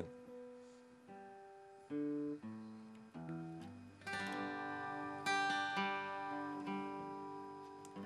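Acoustic guitar played solo: a few single notes picked one at a time, then full strummed chords from about four seconds in.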